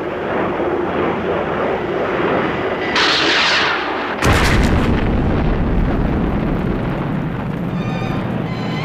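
Stylised TV sound effects of a jet aircraft's steady roar, then the rushing hiss of a missile launch about three seconds in, followed a second later by a sudden loud explosion that rumbles on. Orchestral music comes in near the end.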